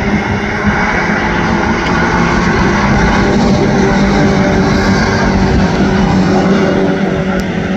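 Race car engine running loudly at a steady pitch.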